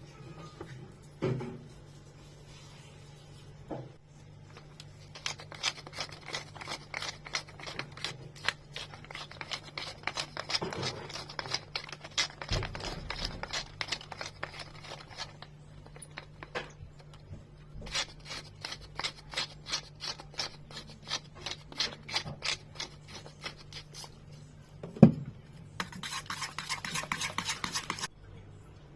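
Utensil clinking against a dish in two long runs of quick, repeated taps. A single louder knock comes near the end, followed by about two seconds of scraping hiss.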